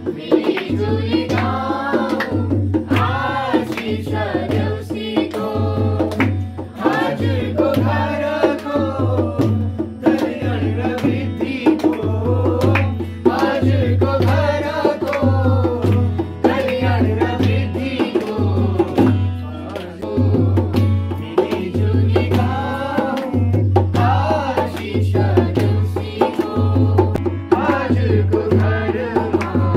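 A group sings a festive Nepali folk song over a steady hand-drum beat, with a guitar playing along.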